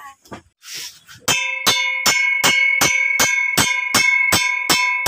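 Improvised work bell, an upright metal pipe, struck in a steady rhythm of nearly three blows a second, each blow ringing on with several clear tones. A few lighter taps come first. It is rung to signal the start of the workday.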